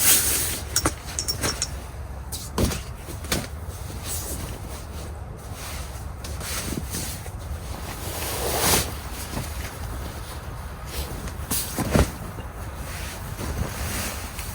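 Handling noise from a sleeping bag being laid out: fabric rustling with scattered knocks and clicks, the sharpest about twelve seconds in, over a low steady hum.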